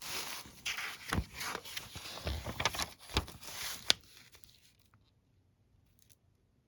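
Paper pages of an instruction manual rustling as they are handled and turned, with a few sharp taps, stopping about four seconds in.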